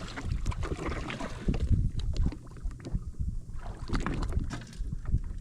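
Wind buffeting the microphone and water slapping against a jet ski's hull, an uneven rumble with scattered short knocks.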